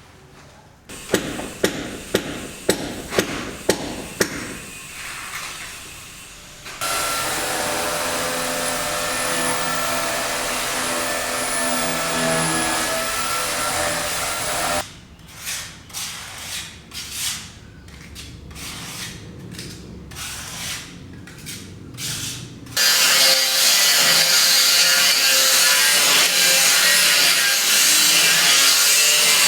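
Building-site tool work. A quick run of sharp knocks, then a power tool running steadily for about eight seconds, then a series of short strokes, and near the end a loud, steady cutting noise, likely wood being sawn.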